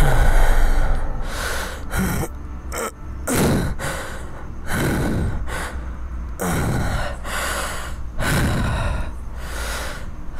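A man gasping and breathing heavily, about seven laboured breaths roughly a second or so apart, some with a falling groan: he is feeling weak and faint.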